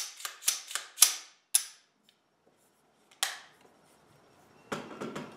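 Gunshots at a shooting range, not very loud: four sharp cracks in quick succession, about half a second apart, then one more about three seconds in and another near the end, each with a short echoing tail.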